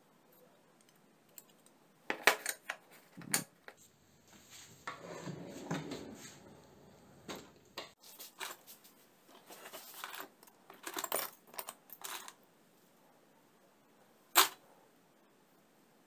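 Small metal hardware clinking and rattling in plastic bins as hands rummage through a drawer of screws and fittings, with a longer scraping rustle about five seconds in and a single sharp click near the end.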